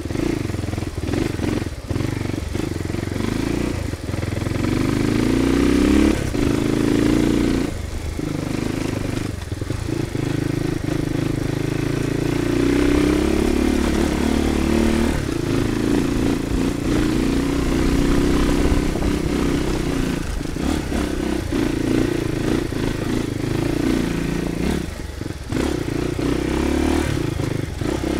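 Crossfire 250 dirt bike's single-cylinder four-stroke engine running under way, its pitch rising and falling with the throttle. Frequent short knocks and rattles break in as it rides the rough dirt trail.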